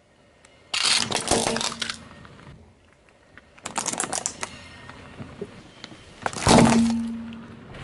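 Plastic objects cracking and crunching under a car tyre as it rolls over them, in three separate bursts; the last is the loudest and carries a brief low tone.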